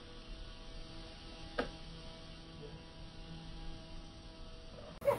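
A faint steady hum made of several even tones, with one sharp knock about a second and a half in.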